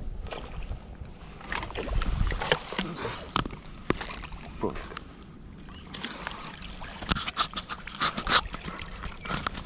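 A hooked trout splashing at the water's surface as it is drawn into a landing net, with a run of sharp splashes in the last few seconds, over handling knocks and rustling.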